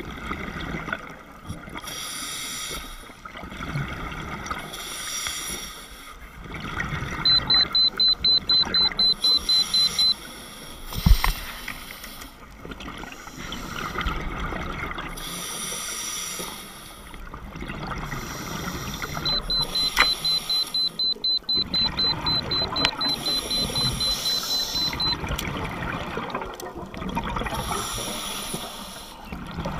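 Underwater breathing of a scuba diver: regulator hiss and bubbling exhalations that swell and fade every couple of seconds. A rapid high electronic beeping, about four beeps a second, sounds twice for a few seconds, and a single sharp thump comes between the two runs of beeping.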